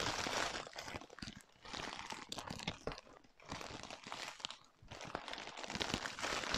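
Clear plastic wrapping around a panettone crinkling and crackling as it is pulled open by hand, in uneven spurts with short pauses.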